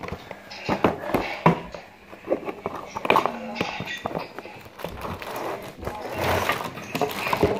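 Handling noise: a cardboard slime-kit box knocked and tapped against hands and the phone in irregular clicks and thuds, with a plastic bag rustling about six seconds in.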